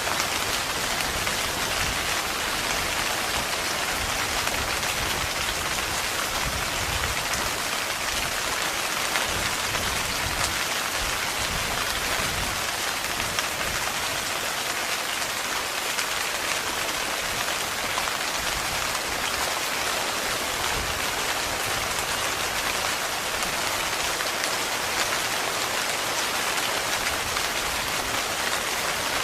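Heavy rain pattering steadily on tent fabric, a dense even hiss of drops with no let-up.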